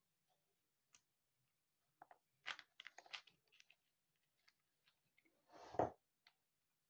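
Faint clicks and short rustles of small plastic Lego pieces being handled, with a short scrape ending in a knock near the end.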